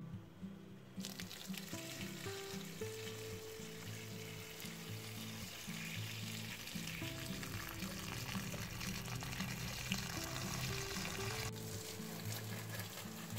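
Water running from a garden hose onto plant leaves and soil: a steady hiss of pouring and spraying water that starts about a second in, with background music.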